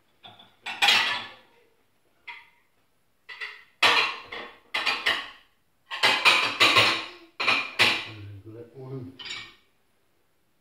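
Crockery and cutlery clattering as a dishwasher is unloaded: sharp clinks and knocks of plates and metal, in short bursts with pauses between.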